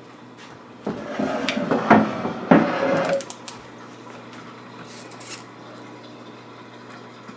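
Hard objects clattering on a tabletop as tools and metal parts are rummaged through and picked up, lasting about two seconds from about a second in, with two sharp knocks and a brief metallic ring at the end. Only a few faint clicks follow.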